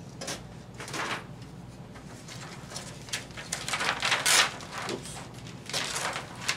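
Thin white reflector sheet from an LED TV's backlight rustling and crinkling in several bursts as it is handled and lifted off the LED strips, loudest about four seconds in.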